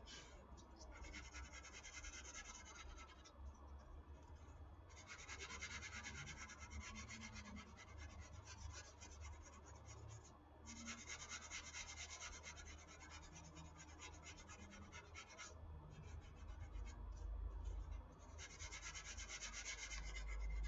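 Faint sandpaper rubbing by hand over dried wall spackle on a foam RC airplane wing, quick back-and-forth strokes in long stretches with a few brief pauses, smoothing the filled repair before primer and paint.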